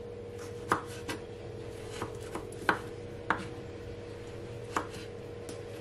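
Kitchen knife cutting a carrot into sticks on a wooden cutting board: about seven separate knocks of the blade meeting the board, at an uneven pace.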